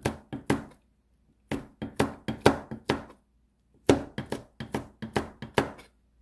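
Kitchen knife chopping a red chili pepper finely on a plastic cutting board: quick blade strikes on the board, about four a second, in three runs with short pauses between.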